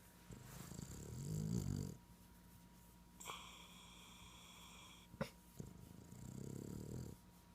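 Boston terrier snoring: two long, low snores about five seconds apart, the first growing louder, with a thin whistling breath between them.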